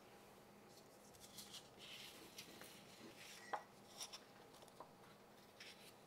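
Near silence, with faint rustles and a few light taps of paper being handled on a tabletop.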